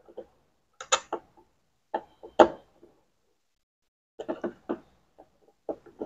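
Phillips screwdriver turning screws out of a washing machine's plastic control panel: short clicks and knocks in small clusters, a second or two apart.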